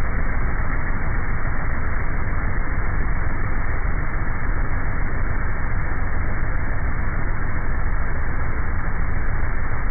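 Airboat running while skimming over the flats: a steady, muffled rush of engine, propeller and wind noise with a low rumble underneath.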